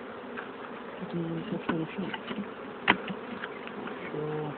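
Honeybees buzzing all around, with single bees humming close past now and then; the colony is disturbed by its hive being opened and transferred. One sharp knock about three seconds in.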